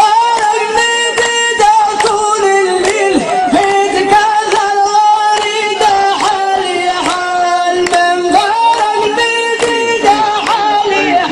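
A man singing an Arabic folk song into a microphone, holding long notes in a high register and ornamenting them with wavering turns.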